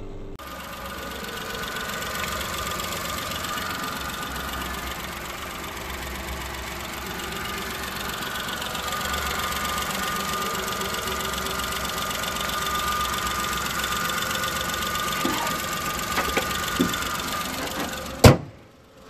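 Three-cylinder petrol engine of a 2009 GM Matiz idling steadily with the bonnet open. Near the end the bonnet is shut with one loud slam.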